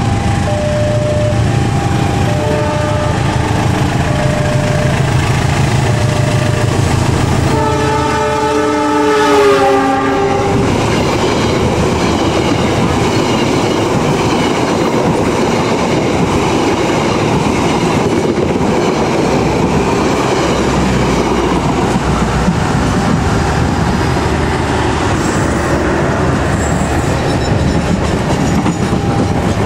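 A level-crossing alarm rings with two alternating tones over the low running of a diesel locomotive engine. About eight seconds in, the locomotive sounds a chord horn for about three seconds. Passenger coaches then roll past with a steady rumble and wheel clatter.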